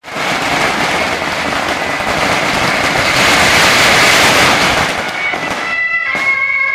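A long string of firecrackers going off in a rapid, continuous crackle that thins out after about five seconds. Near the end, music with high held notes comes in.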